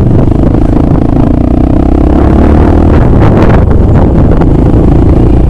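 Dirt bike engine running steadily at riding speed, loud and close.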